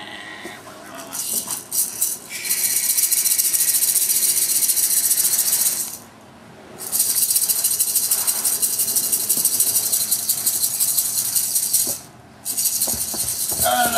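A hand-held toy shaken rapidly, making a dense, high rattling hiss in two long spells with a short break about six seconds in.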